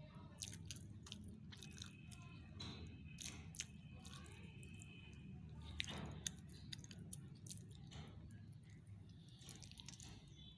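Faint close-up chewing of rice, with scattered sharp mouth clicks; the loudest clicks come about six seconds in.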